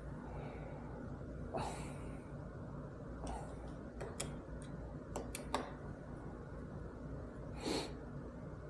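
Hand tools and small metal parts clicking and tapping while the bolts of a motorcycle phone mount are fitted. The short clicks come in a cluster around the middle, and two short breathy rushes come, one early and one near the end, over a steady low hum.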